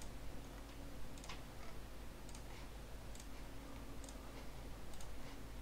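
Faint computer mouse clicks: about five single clicks spaced roughly a second apart, over a steady low background hum.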